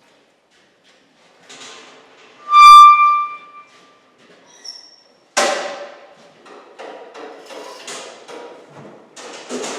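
Metal handling at a band sawmill: light rattling, then one loud ringing metallic tone about two and a half seconds in that dies away within a second, then a sudden clatter about five seconds in followed by continuing knocks and rattles.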